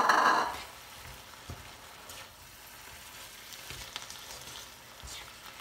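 Ground beef and onion frying in a nonstick pan, sizzling softly while a plastic spatula stirs and scrapes through it, with scattered soft knocks. A brief loud clatter comes right at the start.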